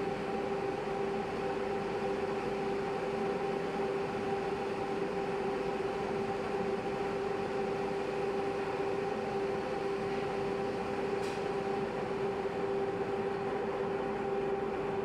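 Sliding-table panel saw running steadily, its motor and spinning blade giving a constant hum with a steady whine over a noisy rush.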